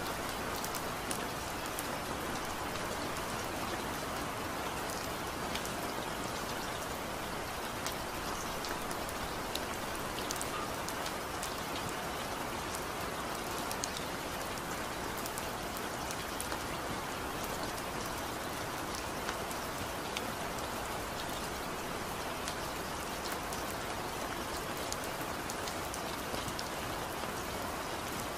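Steady rain falling, an even hiss with many small sharp drop ticks scattered through it.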